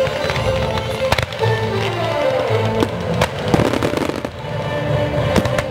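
Aerial fireworks exploding over a loud musical soundtrack, with sharp bangs about a second in, around three seconds in, and near the end.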